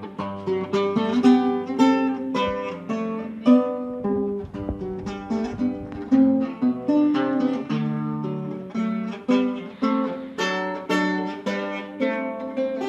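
Renaissance lute played solo: a steady run of plucked notes, melody over lower bass notes.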